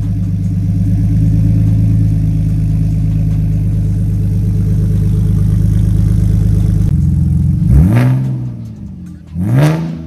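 BMW Z4 (E85) engine idling steadily through a newly fitted straight-through exhaust, then revved twice in quick throttle blips near the end. The first blip is the loudest.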